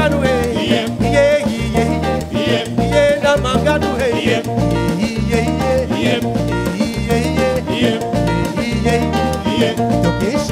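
Live band playing an upbeat dance groove on electric guitar, bass guitar and drum kit, with voices singing over it.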